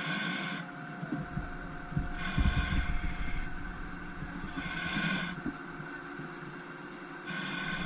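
Fire-truck machinery, engine and hydraulics, running with a steady hum. A brighter hissing surge comes back about every two to three seconds, and there are low rumbling knocks a couple of seconds in.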